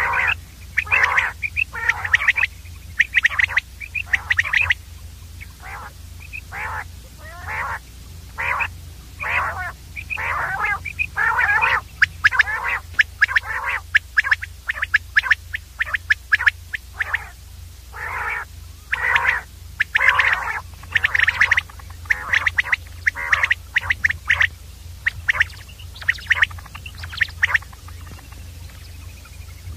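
Common quail calling over and over: short repeated calls, about one to two a second, with a low steady hum underneath.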